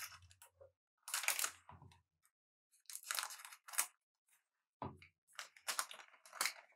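A trading-card booster pack wrapper being torn open and crinkled, in three short bursts of crackling.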